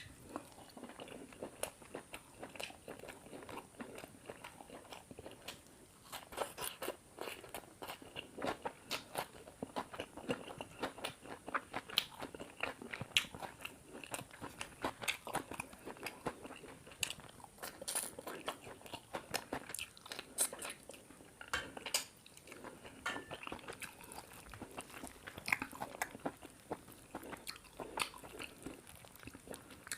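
Close-miked eating sounds of a person chewing big mouthfuls of chicken curry and paratha: wet mouth noises with many sharp, irregular clicks and crunchy bites.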